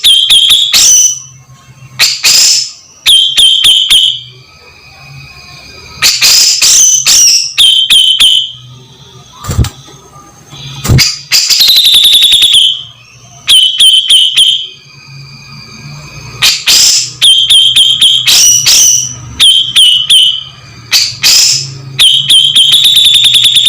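Grey-cheeked bulbul (cucak jenggot) calling loudly in repeated bursts about every two seconds, each a run of harsh rapid clicks ending in a held whistled note.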